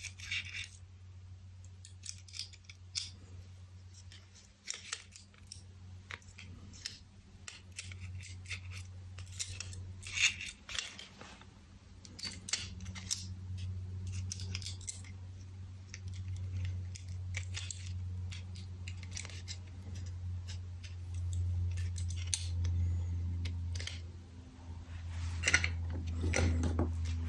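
Small, irregular clicks and taps of the Nest thermostat's circuit board and parts being handled and fitted together by hand, with a cluster of louder clicks near the end. A steady low hum runs underneath and gets louder partway through.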